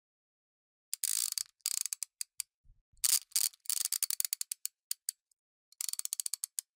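Clicking sound effect for an animated logo: three runs of rapid, crisp, high-pitched clicks, about a second in, around three seconds in, and again near the end.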